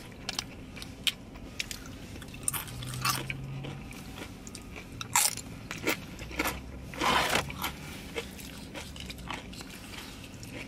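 Close-up eating sounds: crisp crunching bites and chewing, a string of short sharp crunches with a longer, louder one about seven seconds in.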